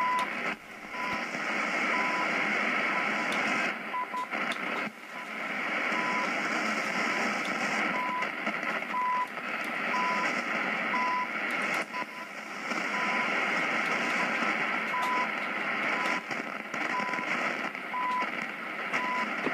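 CHU Canadian time-signal station received in AM on an Icom IC-735 HF transceiver: a short beep about once a second under steady static and hiss. The noise dips briefly a few times as the receiving loop antenna is switched between directions.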